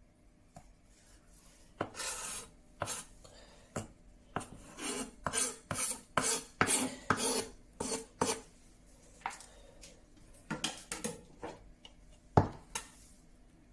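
A knife slicing and scraping through bell pepper on a wooden cutting board, a run of short strokes about two a second. A few lighter taps follow, then one sharp knock near the end as a bowl is set down on the counter.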